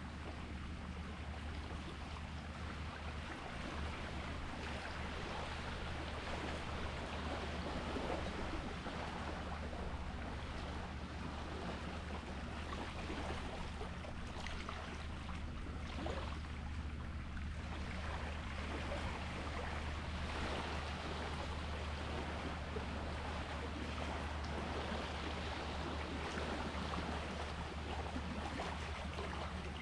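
Sea water washing and lapping at a steady level, with a steady low hum beneath it.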